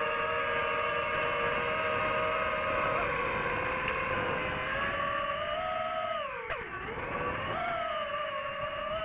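DJI FPV drone's motors and propellers whining steadily; about six and a half seconds in the pitch drops sharply and then climbs back up.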